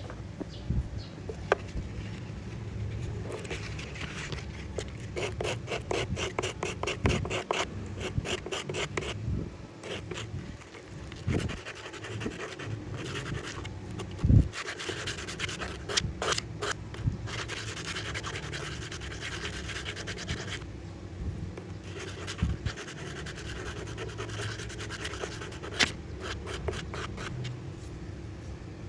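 Hand scraping on bamboo in runs of quick, regular scratching strokes, about five a second, broken by occasional knocks, with one louder thump about halfway through.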